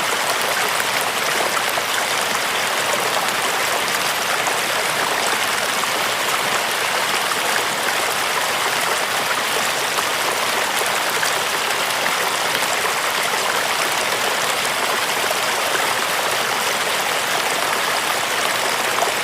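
Steady rush of flowing water, an even hiss with no change in level.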